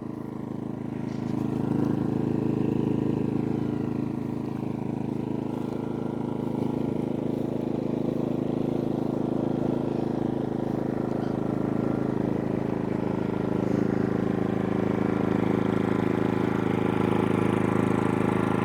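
Genmax GM3500iAED inverter generator's 145cc four-stroke engine running with a steady hum. Its level rises about a second in, then holds steady.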